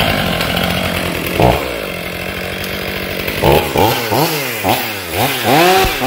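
Stihl MS 500i fuel-injected two-stroke chainsaw running steadily off the wood. In the second half it is blipped up and down about six times in quick succession.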